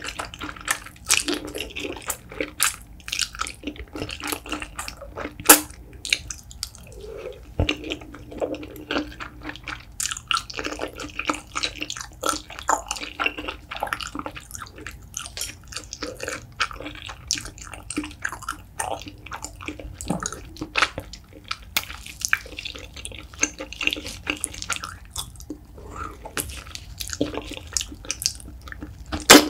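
Close-miked wet mouth sounds of eating. A wide flat noodle in spicy sauce is slurped in near the start, then comes sticky, smacking chewing with many small irregular clicks, and near the end a bite into a chunk of gelatinous braised beef foot.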